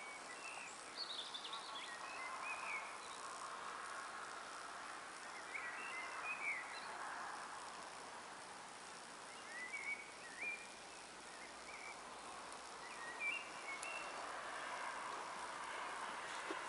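Outdoor rural ambience: scattered short bird chirps and calls every few seconds over a faint steady hiss.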